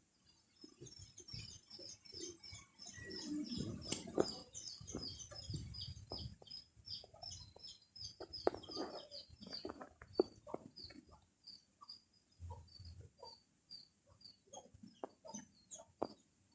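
Birds chirping in a fast series of short high notes that thin out after about eight seconds, with lower calls and scattered clicks and knocks mixed in.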